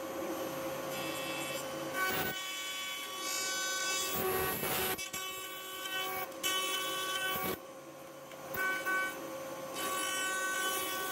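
Router spindle of a CNC router running at high speed while a dovetail bit cuts dovetails into the end of a walnut board, a steady whine with cutting noise that swells and drops as the bit moves through the wood.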